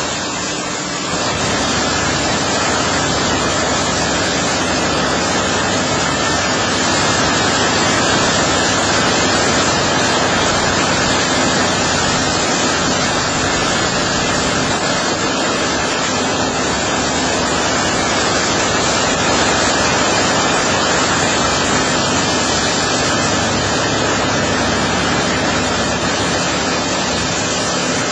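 High-pressure water jets from the nozzles of a single-arm touchless automatic car wash spraying a minivan: a loud, steady hiss of spray.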